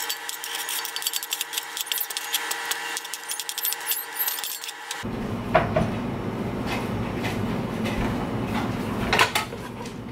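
A chef's knife scraping chopped onion off a plastic cutting board into a stainless steel pot, as a dense run of quick clicks and scrapes. About halfway through this gives way to steadier background noise with a few separate knocks from handling the pot.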